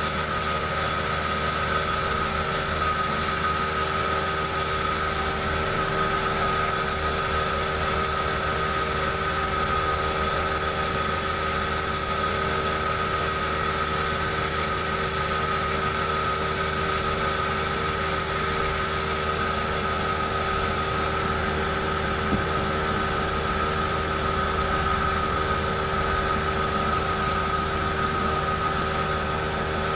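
Two-stroke chainsaw engine running steadily at a constant speed while it rips a log lengthwise.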